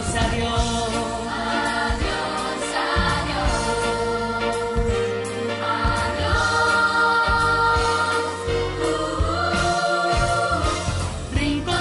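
Music: a sung theme song, voices holding long notes over a pop backing with a steady bass line.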